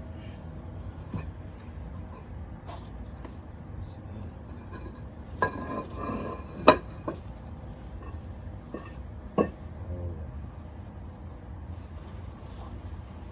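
Hard clinks and knocks of solid objects over a low steady rumble: a short scraping shuffle about five and a half seconds in ends in the loudest sharp clink, followed by a couple more single knocks.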